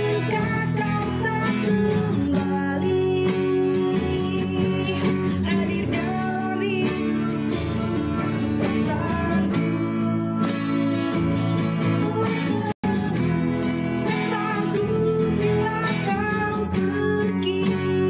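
Background music led by a plucked acoustic guitar, with singing. It cuts out for an instant about two-thirds of the way through.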